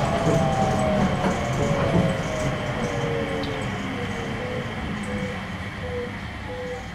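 Rubber-tyred Nippori-Toneri Liner 300-series automated guideway train running, its traction motor whine falling steadily in pitch over a rumble of tyres and car body as it slows.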